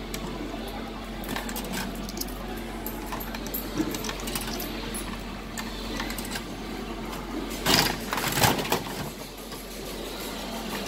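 Clicking and rattling of a capsule-toy (gashapon) machine being worked by hand, with scattered small clicks and a louder clatter about eight seconds in.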